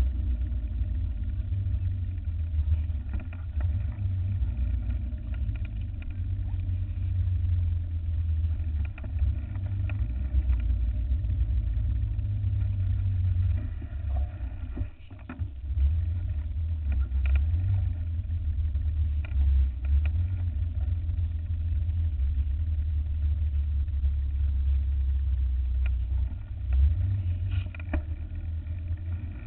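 Wind rumbling on the microphone of a handlebar-mounted camera as a mountain bike rolls along a paved road, with tyre noise and a few small clicks and rattles from the bike. The rumble eases briefly about halfway through.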